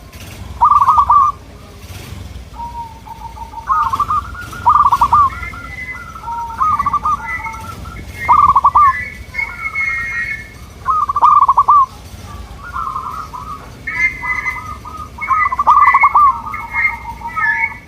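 Zebra doves (perkutut) cooing in quick trilled phrases, several birds calling over and answering one another.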